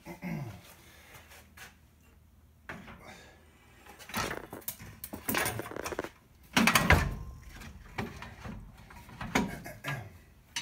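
Metal parts being handled: a string of separate clanks and knocks, the loudest about two-thirds of the way through.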